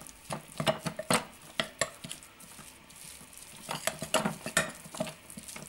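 A spoon stirring raw minced meat in a glass mixing bowl, clinking and scraping against the glass in irregular knocks. There is a quieter stretch in the middle. The mince is being worked to a stiff consistency for burger patties.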